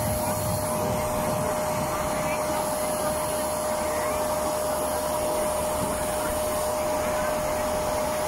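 A motor-driven blower running steadily: an even whooshing drone with a constant hum.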